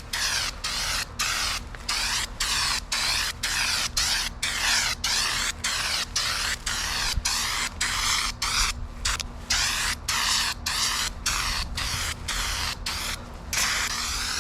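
Aerosol can of spray-on bedliner hissing in short bursts, about two a second with brief breaks between, as the coating goes on. Near the end it changes to one unbroken spray.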